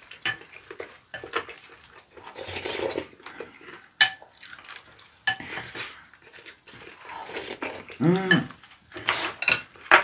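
Wooden chopsticks clinking and scraping against a glass bowl and plates during a meal, in scattered irregular knocks. There is a brief pitched voice sound about eight seconds in.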